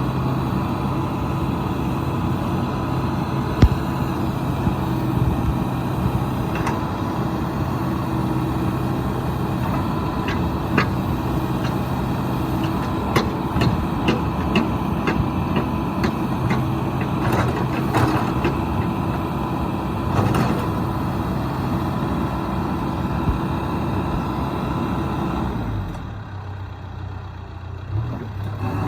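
John Deere 310K backhoe loader's diesel engine running steadily, with scattered sharp metallic clanks and ticks in the middle stretch. Near the end the engine drops back to a lower, quieter idle.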